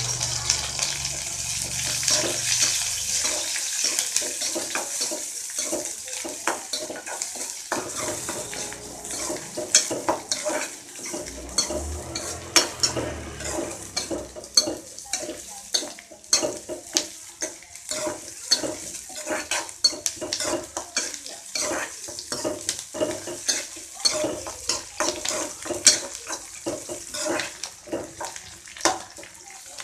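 Onions, curry leaves and green chillies frying in hot oil in a metal kadai. The sizzle is loudest in the first few seconds. A metal spatula stirs and scrapes them throughout, with many sharp clicks and taps against the pan.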